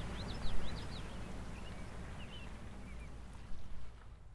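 Outdoor ambience of birds chirping in quick high calls over a steady low rumble, with a louder low bump about half a second in and another near the end, fading out at the close.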